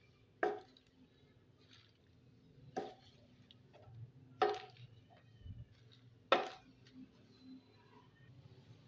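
Wooden spatula knocking against a stone-coated wok four times, about two seconds apart, while chopped spinach and potatoes are tossed, with a few fainter ticks between.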